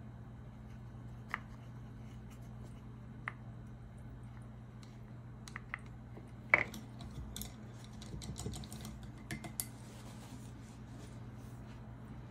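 Small hard clicks and taps of a paintbrush against a plastic watercolour palette and paint pans while paint is mixed, the sharpest about six and a half seconds in, followed by a flurry of small clicks and rustles. A low steady hum runs underneath.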